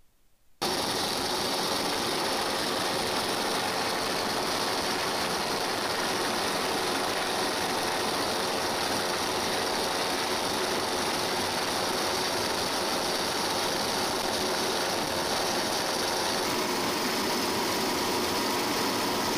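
Steady helicopter engine and rotor noise on aerial footage of the lava: an even, unchanging rushing noise with a faint steady hum, starting suddenly about half a second in.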